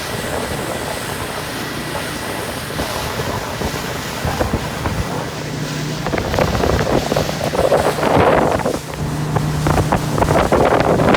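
Motorboat under way: a steady engine hum comes up about halfway through, under rushing water and wind buffeting the microphone that grow louder in gusts in the second half.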